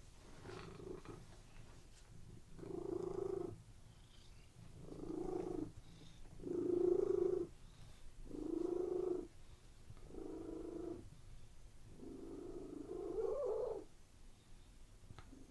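Domestic cat purring: a steady low rumble that swells louder about every two seconds in an even rhythm, then fades near the end.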